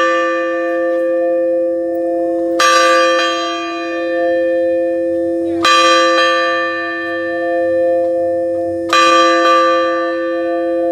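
Large bell hung in an upright frame being rung, struck about every three seconds, three strokes in all, each new stroke landing while the last is still ringing, so the tone never dies away.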